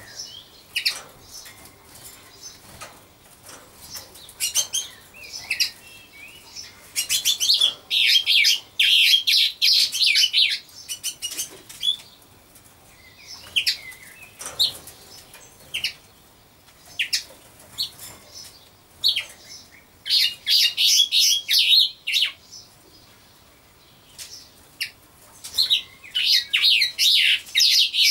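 Small birds chirping, in bouts of rapid high twittering a few seconds long about a quarter of the way in, again past two-thirds and near the end, with scattered single chirps between.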